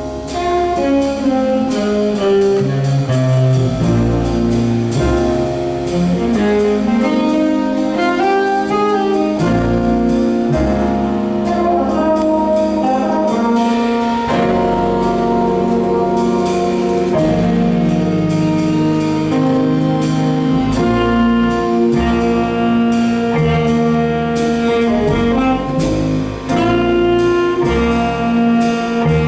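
Big-band jazz orchestra playing live, with the saxophone section prominent over upright bass and piano.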